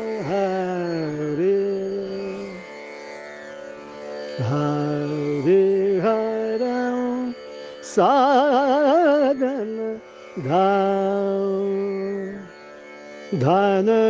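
Indian classical singing without words: a male voice holds long notes and slides up and down between them. About eight seconds in comes a fast, shaking run of notes.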